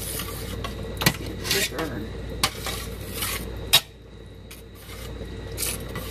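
Metal slotted turner stirring a thick cream sauce in a stainless steel pan, scraping and rubbing against the pan with several sharp clinks; the loudest clink comes about two-thirds of the way through.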